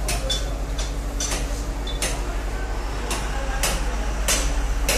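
Irregular sharp metal-on-metal clinks and clanks, about ten in five seconds: steel shuttering props and pipes being struck. A steady low hum runs underneath.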